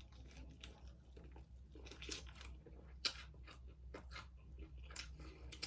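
A person chewing and biting into fried chicken wings close to the microphone: scattered faint crunches and mouth clicks, the sharpest about two and three seconds in.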